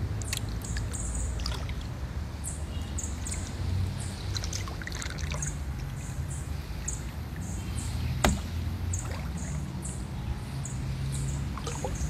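Kayak paddling along a calm river, with a steady low rumble of water and handling noise on the phone's microphone. Short high chirps repeat about twice a second throughout, and there is a sharp knock about eight seconds in.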